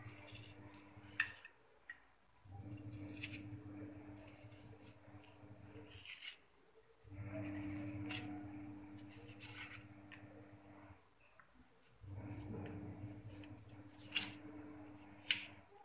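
Kitchen knife slicing and scraping the skin off an aloe vera leaf, with a few sharp clicks of the blade. A faint steady hum runs underneath and drops out briefly several times.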